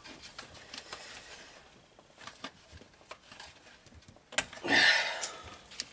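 Hands handling parts on the top end of a Stihl MS660 chainsaw: scattered small clicks and taps, then a louder scrape lasting about a second, a little past the middle.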